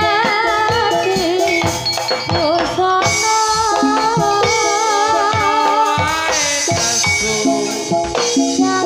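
Live Javanese jathilan accompaniment music: drum strokes and rattling percussion under a melody line with strong, wavering vibrato, playing on without a pause.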